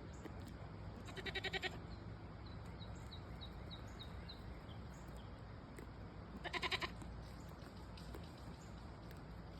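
Two short, quickly wavering bleats from farm livestock, about five seconds apart.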